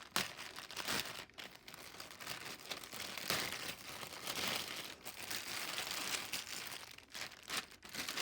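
Packaging crinkling and rustling with many sharp crackles as a shipped package is opened and its contents pulled out.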